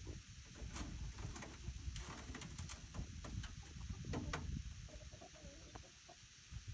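Peafowl making short, soft clucking calls over a low rumble.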